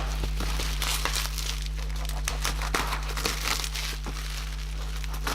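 Packaging being handled: crinkling and rustling with many small clicks and knocks, over a steady low electrical hum.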